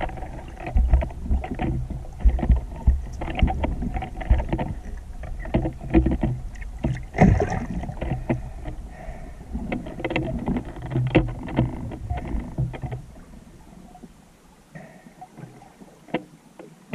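Water movement heard underwater as a diver swims with a speargun: a low rumble with many irregular clicks and knocks, which dies down about fourteen seconds in.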